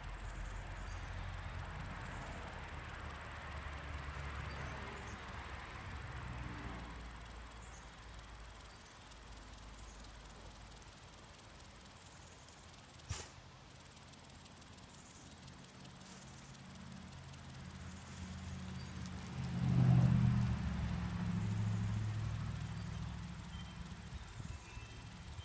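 Steady high-pitched insect chorus, with a low rumble that swells about twenty seconds in and fades over a few seconds.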